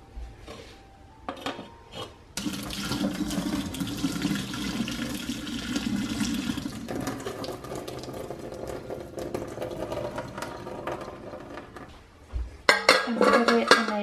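Cooking water from boiled vegetables and chicken poured out of a tilted saucepan into a stainless steel sink to drain them: a steady splashing stream starts about two seconds in, is strongest for about five seconds, then thins to a lighter trickle. Near the end, metal clatters as the pan knocks against a steel bowl.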